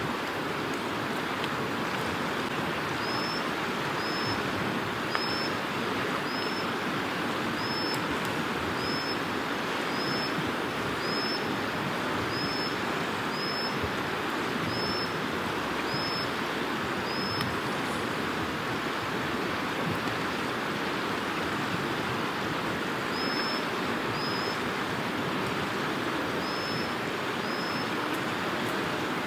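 Steady rush of fast-flowing stream water. Over it a small bird gives short, high chirps, about one a second, pausing for several seconds past the middle before four more near the end.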